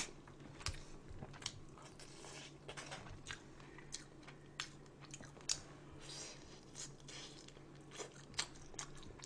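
Faint close-miked chewing and biting of food, with irregular soft crunches and mouth clicks, over a faint steady low hum.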